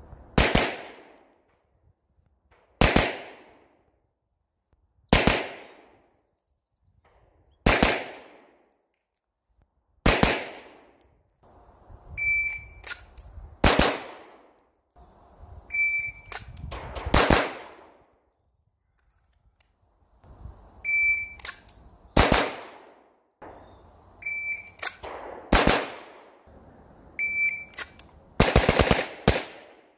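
Ported CZ Shadow 2 9mm pistol firing: five single shots about two and a half seconds apart. Then, five times, a shot timer's short beep is followed by a quick string of shots, the last string the fastest.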